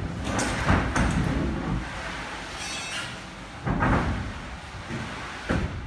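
Irregular rumbling thuds and knocks, with some scraping, carried through the particleboard sheets of a mezzanine floor as the sheets are worked on and clamped down. Several sharper knocks stand out, the strongest just under a second in and again near the end.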